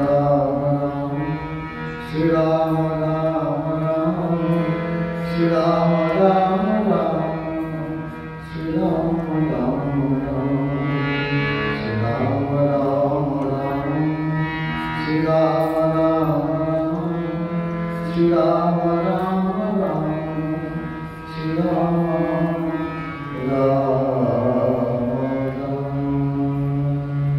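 A man's voice singing a Bengali devotional prayer in long melodic phrases, accompanied by a hand-pumped harmonium that holds a steady low drone under the tune.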